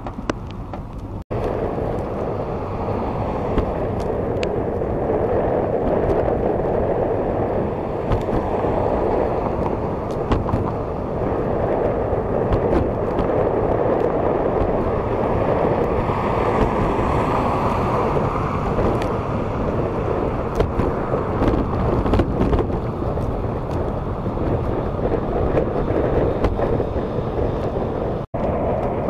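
Steady rushing wind and tyre rolling noise from a small vehicle moving at about 15 mph, heard through a plastic sandwich bag covering the camera's microphone, with a few light taps. The sound drops out for an instant just over a second in and again near the end.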